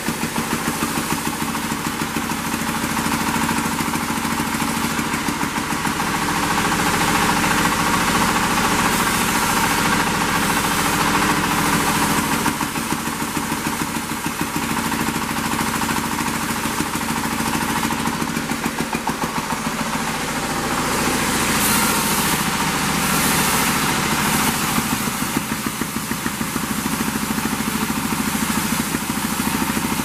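Sawmill band saw running with its engine drive, a steady mechanical drone with a fast, even pulse, as timber is fed through the blade.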